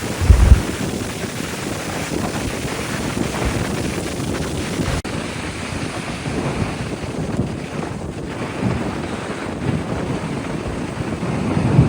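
Ocean surf washing on a beach, with wind buffeting the microphone; a strong gust hits about half a second in.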